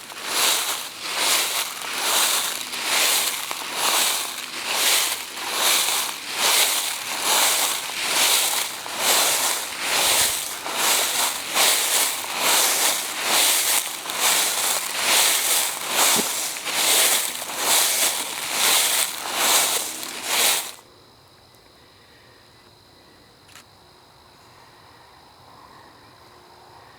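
Footsteps crunching through dry fallen leaves at a steady walking pace, stopping about three-quarters of the way through. After that, crickets chirp faintly.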